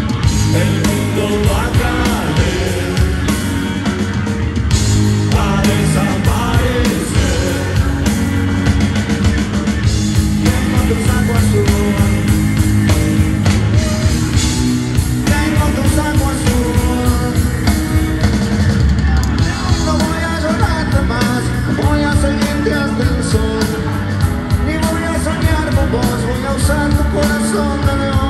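Live rock band playing in an arena: drums, bass and electric guitars through the PA, heard from the audience.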